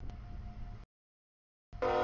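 A diesel freight locomotive rumbling past a grade crossing, with the crossing bell ringing faintly. Near the end the locomotive's air horn sounds loudly as a steady multi-note chord. The sound cuts out to dead silence twice in between.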